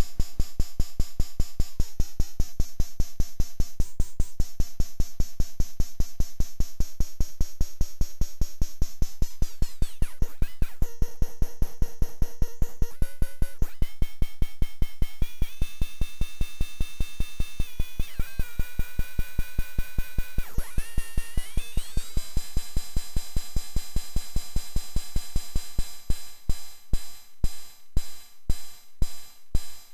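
DIY XORbell metallic noise-percussion module, built from CMOS square-wave oscillators mixed through XOR logic gates, playing a fast, even run of metallic hi-hat/cowbell-like hits, running on fewer of its oscillators. Its metallic tones glide and step to new pitches several times as the oscillator wiring is changed, and near the end the hits come further apart with the sound between them dropping away.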